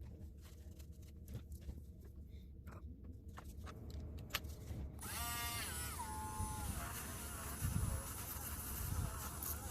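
Faint clicks of small parts being handled. About halfway through, a small airbrush compressor starts, its buzzing pitch sliding down as it comes under load, then runs steadily with a hiss of air.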